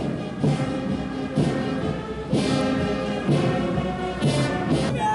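Brass band music, with sustained chords and a strong accent about once a second.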